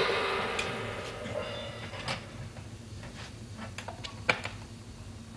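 A music cue fading out, then light clinks and knocks from a small enamel coffee pot being handled on a burner. There are a handful of separate clicks, with one sharper knock about four seconds in.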